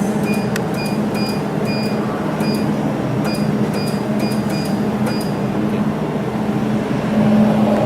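Laser jewelry welding machine running with a steady hum, while its control panel gives short high beeps, about two a second, for the first five seconds as the parameters are changed with the control stick.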